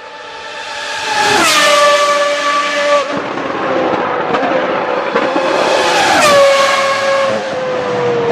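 Ferrari cars at high revs passing at speed, one after another: a high engine note with many overtones that drops sharply in pitch as each car goes by, once about a second in and again about six seconds in, with a few short sharp cracks between.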